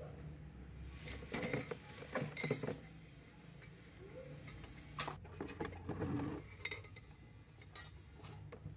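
Junk in a plastic tub being handled: hard objects clink and knock against each other, and old newspapers rustle, in several short irregular bursts.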